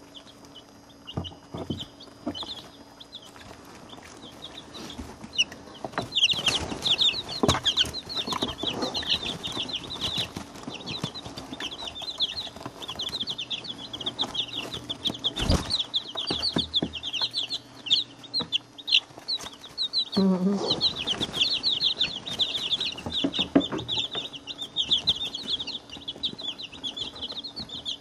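A brood of week-to-ten-day-old chicks peeping: many short, high peeps in flurries, busiest about six seconds in and again about twenty seconds in, with scattered taps and knocks among them.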